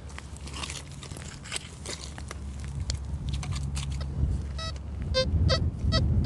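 A spade cuts into turf and soil with crunching and crackling. About two thirds of the way in, the XP Gold Maxx Power metal detector gives several short, high-pitched beeps as its coil passes over the freshly dug spot. This is the clean target tone, with no low iron grunt.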